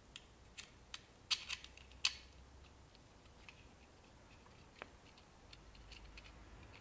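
Small clicks and taps from handling a stacked PortaPack and HackRF circuit-board assembly and its small metal standoffs, several in quick succession in the first two seconds, the sharpest about a second and a half in and again at two seconds, then a few light ticks.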